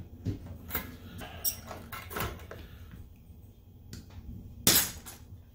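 Small hand tools and a plastic LED bulb housing being handled on a rubber work mat: a few light clicks and scrapes, with one louder, sharper click or scrape near the end as a small screwdriver is picked up and brought to the bulb's LED board.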